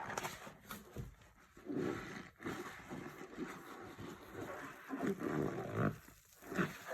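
Foamy floor-cleaning solution squeaking and squelching as it is scrubbed, in several drawn-out swells with short crackles of bursting foam between them.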